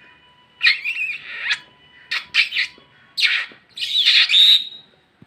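Pet parrots squawking: about five short, harsh calls one after another.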